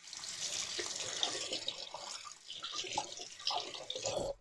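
Tap water running into a sink and splashing unevenly, as a safety razor is rinsed between passes; the tap shuts off abruptly near the end.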